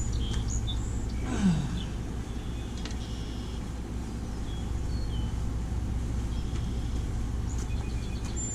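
Chainsaw engine running at a low, steady idle, with one short rev that drops quickly back down about a second and a half in. Small birds chirp faintly in the background.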